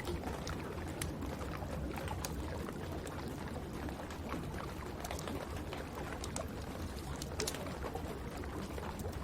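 Wood fire crackling in a fireplace: scattered sharp pops and snaps, a few every second, over a steady hiss of rain.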